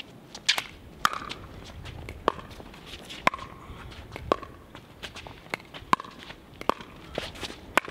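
Pickleball rally: sharp pops of paddles striking the plastic ball, with ball bounces on the court, about eight strong hits roughly a second apart.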